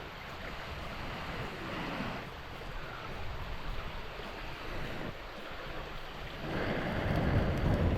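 Wind buffeting the microphone, a steady rushing noise with a louder gust starting about two-thirds of the way in.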